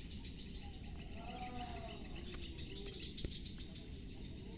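Quiet background ambience: a steady low noise with faint bird chirps. There is a faint call that rises and falls about a second in, and a single small click about three seconds in.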